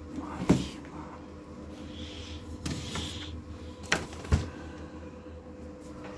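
Handling clatter of a steel bowl: a sharp knock about half a second in, a softer rattle near the middle and two more knocks a little later, over a steady low hum.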